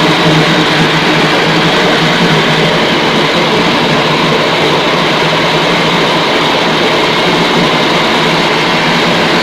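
Bakso meat-grinding machine running steadily with a loud, even motor hum and mechanical noise.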